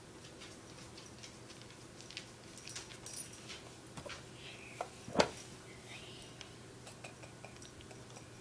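Small clicks and taps of makeup items being handled, with one sharp knock a little after five seconds in.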